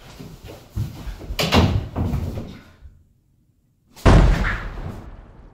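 Wooden interior door being handled, with several knocks and bumps, then a loud slam about four seconds in that rings out for about a second.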